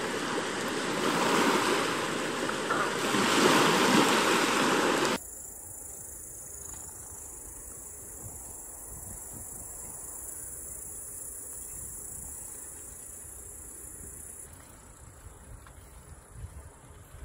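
Small waves washing on a sandy shore, then, after a cut about five seconds in, a much quieter stretch while riding a bicycle in the dark: low wind rumble with a steady high insect trill that fades near the end.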